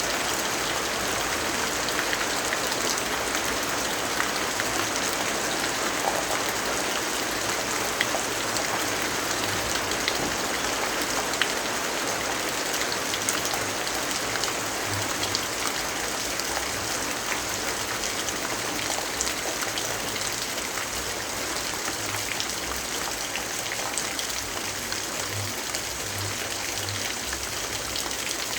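Steady rainfall with many scattered drop ticks, an even rushing hiss that holds without a break.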